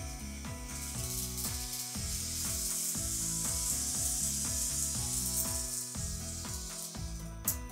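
N-gauge model trains running along the track, a steady high hiss that starts about a second in and stops near the end. Background music plays underneath.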